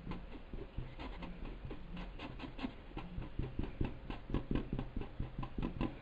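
Paintbrush bristles scrubbing and dabbing on fabric in quick short strokes while smudging paint: an irregular run of soft scratchy brushing sounds, about three to four a second, that stops just before the end.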